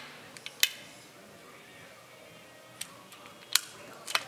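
A few sharp, short metallic clicks from handling a BSA R10 Gold Star .177 air rifle between shots, the sound of the action being cycled and reloaded. The loudest clicks come about half a second in, at three and a half seconds and near the end.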